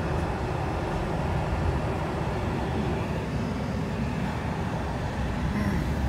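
Chevrolet Z71 pickup's 5.3-litre V8 running steadily, heard from inside the cab as a low, even rumble.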